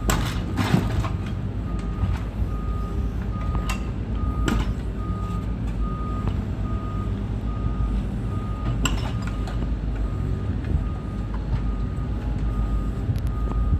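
Excavator's diesel engine running with its travel/reversing alarm beeping over and over from about two seconds in, and a few sharp metallic knocks.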